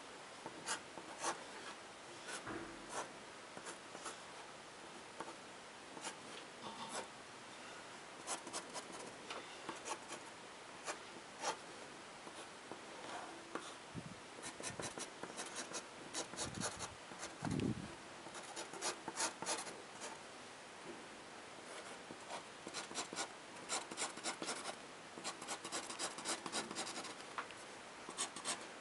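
Fine-tip ink pen scratching on paper in quick runs of short hatching strokes, densest near the end. Two soft low thumps come around the middle.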